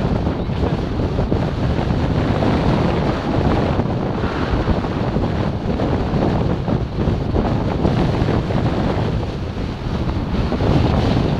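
Wind buffeting a camera's microphone carried by a skier going downhill, a loud, gusting rush mixed with skis scraping over the snow.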